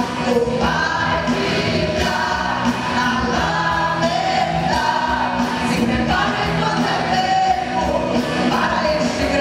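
A woman singing a Pentecostal gospel song live into a handheld microphone, with long held notes, backed by a live band with drum kit and electric guitar.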